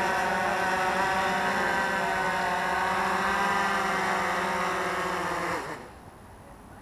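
DJI Phantom 3 Advanced quadcopter's propellers whining steadily as it comes down to land. The motors spin down with a slight drop in pitch and stop about five and a half seconds in, once it has touched down.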